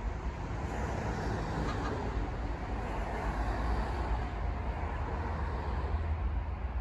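Steady outdoor rumble and hiss, like distant road traffic, with no clear tone or alarm standing out.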